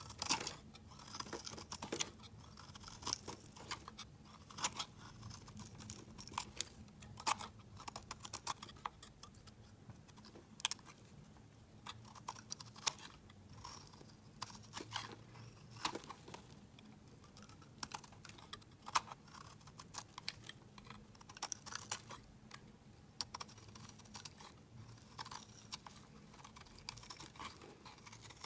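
Snap-off utility knife blade cutting into a bar of soap. The soap gives off crisp, irregular clicks and crunches as flakes and chunks break away under the blade.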